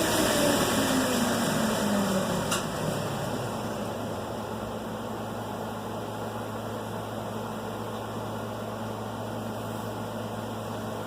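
Belt grinder winding down at the contact wheel, its pitch falling and its sound easing over the first two seconds, with a sharp click about two and a half seconds in. After that a steady low hum and hiss carries on.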